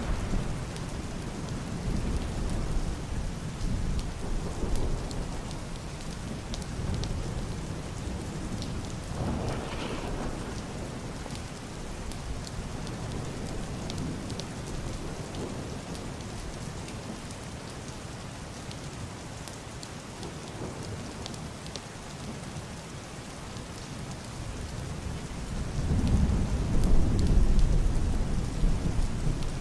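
Heavy rain pattering steadily on a roof and window glass, with single drops ticking through it. Muffled, distant rolling thunder comes over it: a short rumble about ten seconds in, and a longer, louder one that swells near the end.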